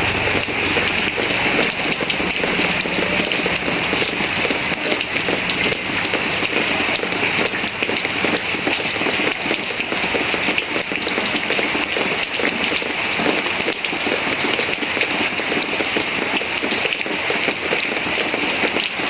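Moderate rain falling steadily: an even hiss made of countless fine drop ticks, with no lulls.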